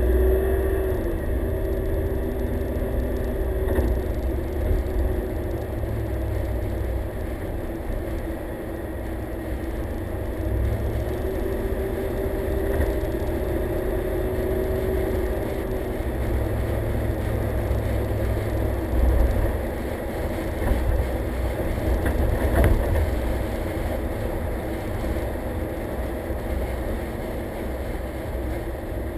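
Car driving on a city street, heard from a camera mounted on its hood: a steady low rumble of engine and road with a faint hum that comes and goes. One short knock comes about three quarters of the way through.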